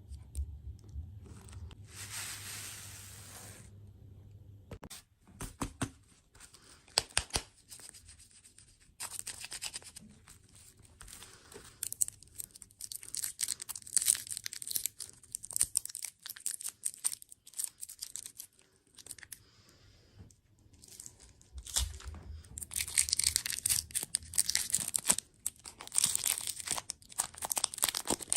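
Packaging crinkling and being torn open close to the microphone, in dense crackling spells that grow louder near the end.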